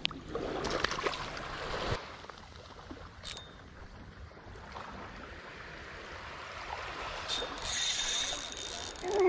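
Shallow seawater sloshing around the feet for about two seconds, then small waves lapping on a sandy shore, the wash swelling louder near the end.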